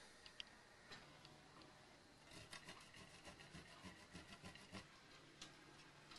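Cheese grated on a metal hand grater: a faint, quick run of short rasping strokes, several a second, through the middle, after a couple of soft clicks.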